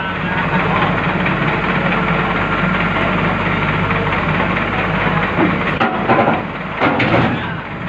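Heavy engine running steadily at a low, even speed, with two brief louder sounds about six and seven seconds in.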